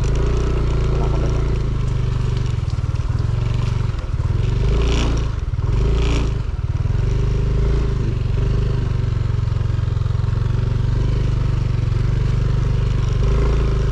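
Small motorcycle engine running steadily at low speed while climbing a rough, muddy dirt track, with two short rushing noises about five and six seconds in.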